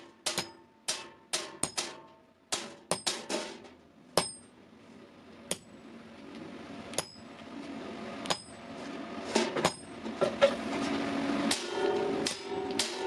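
Hand hammer blows on steel against an anvil, irregularly spaced, many of them ringing with a high metallic tone: forging axle steel. A steady rushing noise builds underneath from about the middle on.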